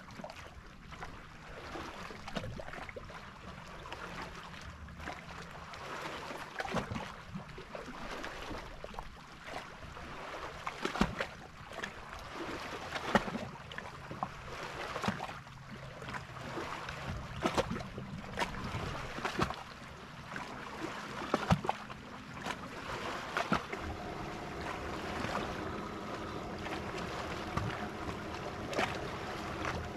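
Background sound of a bass boat sitting on a calm lake: wind and water noise with scattered light clicks and knocks. About three-quarters of the way through, a steady hum sets in.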